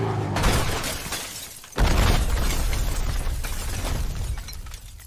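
AI-generated movie sound effects of a car crash: a car engine running, then about half a second in a sudden crash with breaking and shattering. At nearly two seconds a louder explosion goes off, and its deep rumble fades away over the next few seconds.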